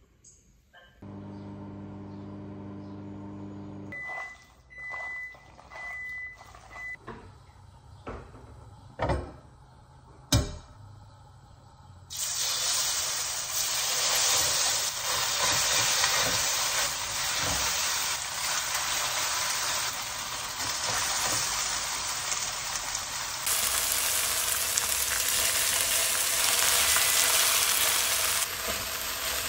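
Thin-sliced raw beef hitting a hot frying pan, starting a loud, steady sizzle about twelve seconds in that carries on from there. Before it come a low hum, three short high beeps and a couple of sharp knocks.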